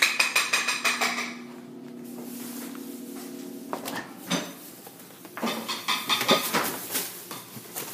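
A frozen pizza box and other items being handled and pushed into a fridge-freezer, with knocks and rattles at the start and a run of clattering about two thirds of the way in. A low steady hum sounds under the first few seconds.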